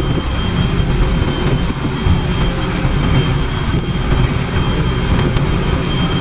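A steady, loud low rumble with a constant thin high-pitched whine above it, like an engine running.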